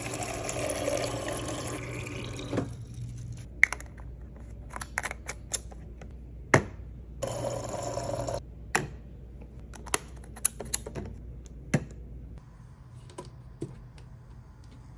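Liquid being poured, ending a couple of seconds in, then scattered clicks and taps of containers being handled, with a second short pour in the middle.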